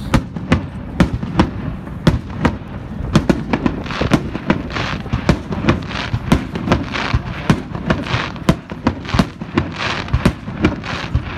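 Fireworks display: aerial shells bursting in quick succession, several sharp bangs a second, with stretches of crackling between them.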